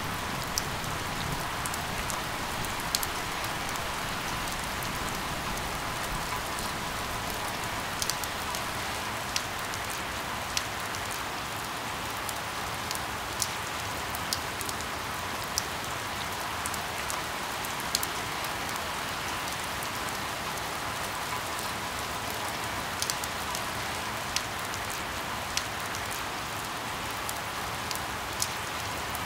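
Steady rain falling, an even hiss dotted with scattered sharp ticks of single drops striking.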